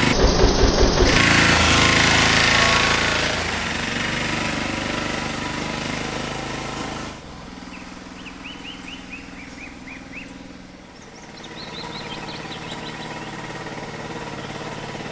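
VST Shakti 130 DI power tiller's single-cylinder diesel engine running with a rapid knocking beat as it drives past. About seven seconds in it drops suddenly to a quieter, more distant running, with two runs of short high chirps over it.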